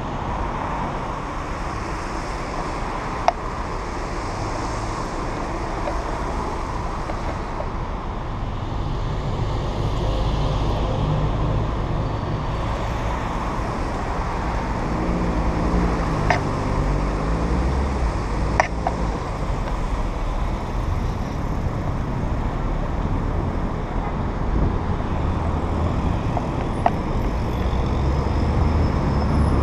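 A car driving through city traffic on a wet street: steady engine and tyre noise, with an engine note that rises and falls about halfway through. A few short sharp clicks.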